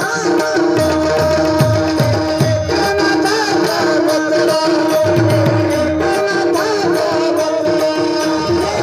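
Instrumental passage of a Marathi devotional gaulan: tabla playing a steady rhythm, its bass drum strokes sliding down in pitch, over sustained harmonium notes.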